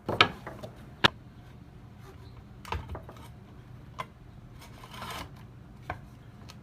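Scattered knocks and clicks from handling cut boards and the saw: a loud pair right at the start, one about a second in, a few more spread through, and a short rustle about five seconds in. The saw is not running.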